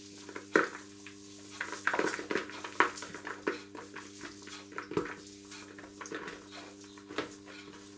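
Feta cheese being crumbled by hand into a plastic mixing bowl: soft handling noise with irregular light clicks and knocks as the fingers and cheese touch the bowl, over a steady low hum.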